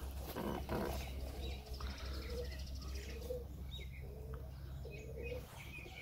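Serbian Highflyer pigeons cooing in a nest box during pairing: a few low, rolling coos spaced a second or so apart, with a brief rustle about half a second in.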